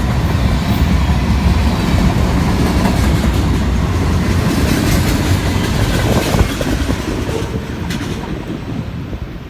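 Freight train cars rolling past on the rails, steady and loud, then fading away over the last couple of seconds as the train goes by.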